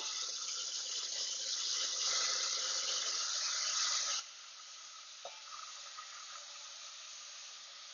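Chopped ridge gourd pieces, wet from their soaking water, dropped into hot ghee in an aluminium pot and sizzling. The sizzle is loud for about four seconds, then drops suddenly to a quieter, steady sizzle.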